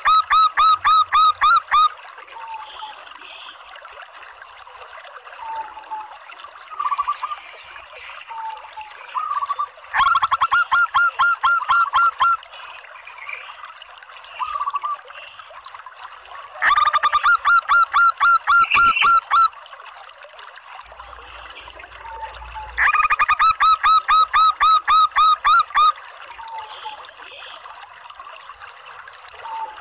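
Female zebra dove (perkutut) calling: four bursts of rapid, evenly repeated notes, each run lasting two to three seconds, with short soft single notes between them.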